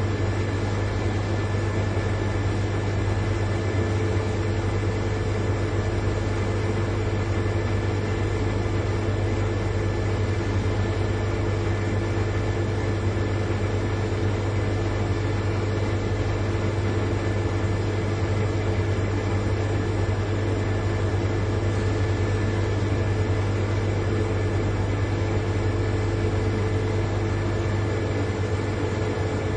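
Large refrigerator's compressor running, a steady low hum with a faint whine above it and no change in level.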